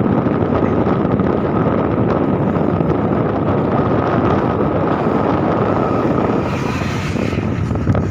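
Steady drone of the ferry ALP Mutiara Barat's engines as it manoeuvres to dock, mixed with wind buffeting the microphone, with a faint steady whine over it and a hissing rush that grows near the end.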